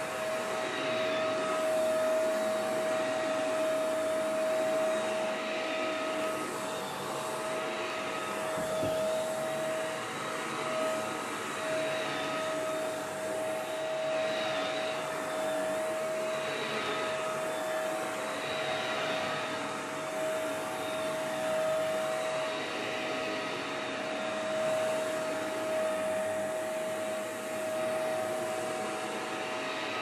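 Shark Navigator NV201 upright vacuum cleaner running on carpet: a steady high motor whine over a rush of air that swells and fades every couple of seconds as it is pushed back and forth. It is running normally with its suction working, as no clog or fault was found.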